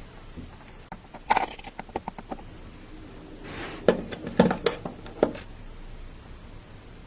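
Clicks and light knocks of small hard objects being handled, in two quick clusters, one about a second in and one about four seconds in, with a short hiss just before the second.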